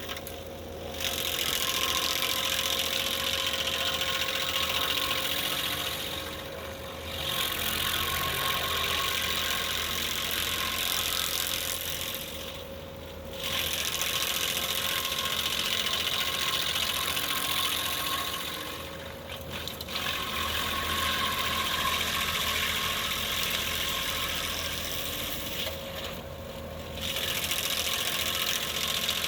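Skid steer engine running a hydraulic stump grinder attachment, with a steady engine hum and a loud cutting noise. The noise drops away for about a second roughly every six seconds, then comes back.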